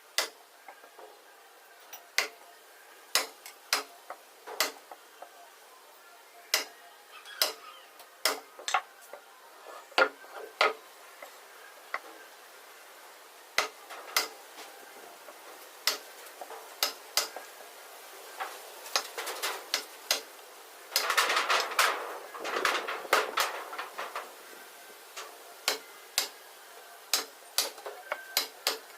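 Carpentry hand-tool work: irregular sharp knocks and clinks of metal tools striking and being set down on wood, with a busier stretch of clattering a little past the middle.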